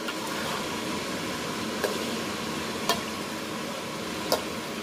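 Thick chili sambal simmering in a metal wok over a steady rushing hiss, with three sharp pops about two, three and four seconds in as the thick paste spatters.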